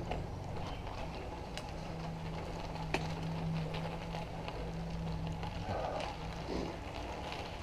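Bicycle rolling slowly over gravel: a low rumble of tyres on loose stones with scattered small clicks, and a steady low hum through the middle.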